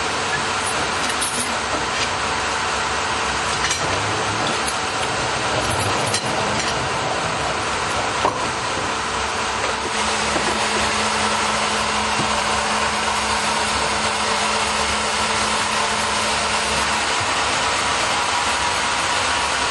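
Sawmill machinery running: a steady, dense mechanical noise from the log carriage and head saw, with occasional knocks as the log is handled. A steady hum comes in about halfway through and stops a few seconds before the end.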